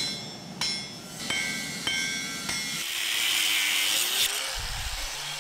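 Hammer blows on a glowing Damascus steel billet on the anvil while forge-welding its 32 layers: five ringing strikes about 0.6 s apart. Then, about three seconds in, an angle grinder grinds steel for about a second and a half.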